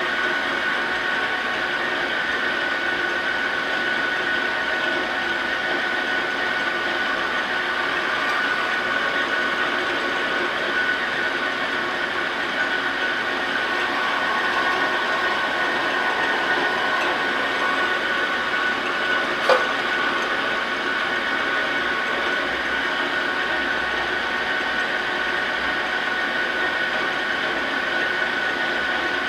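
Victor engine lathe running with a steady high whine while an insert parting tool is hand-fed into a spinning steel drill-rod workpiece, cutting an undercut. One sharp click about two-thirds of the way through.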